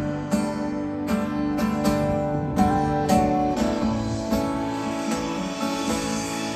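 A rock band playing live with no singing: strummed guitar chords over sustained notes, which end the song.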